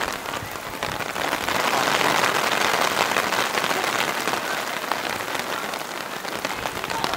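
Steady rain pattering, a dense hiss of fine drops that swells about a second and a half in and eases slightly near the end.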